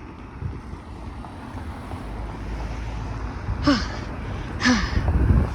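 Wind rumbling on the microphone, the low rumble swelling toward the end, with two brief falling voice sounds about a second apart in the middle.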